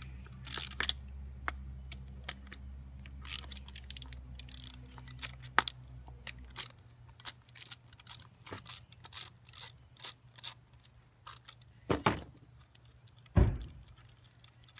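Ratchet wrench with a 10 mm socket clicking in short spells as bolts are loosened, with small metal clinks from the carburetor and intake manifold parts. A low steady hum stops about halfway through, and two heavier knocks come near the end.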